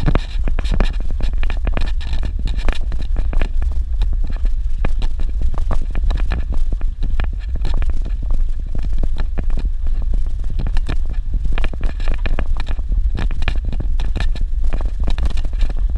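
A vehicle driving over a rough dirt road, heard from inside: a steady low rumble with constant irregular rattles and knocks.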